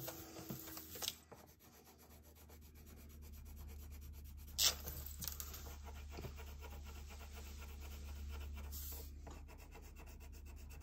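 Red wax crayon rubbing on paper in quick back-and-forth strokes, colouring in lightly, with a single sharp tap about four and a half seconds in.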